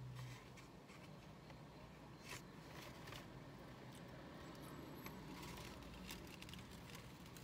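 Faint rustling and crinkling of a paper fast-food bag and burger wrapper being handled, a few soft crackles over the quiet hum of a parked car's cabin.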